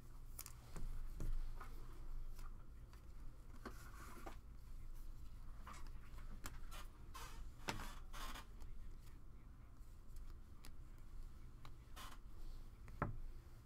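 Stiff glossy trading cards being shuffled through by hand, sliding and flicking against one another in short rustles and clicks, over a low steady hum.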